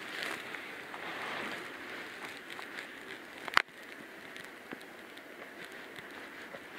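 Water trickling and dripping in a suikinkutsu, the buried water-koto jar of a Japanese garden basin: a soft watery hiss over the first couple of seconds, then scattered faint drips and one sharp click about three and a half seconds in.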